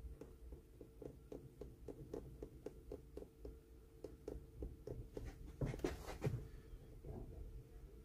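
Faint rhythmic rubbing strokes on a new leather shoe sole, about three or four a second, over a low steady hum. A few louder scuffs come about six seconds in.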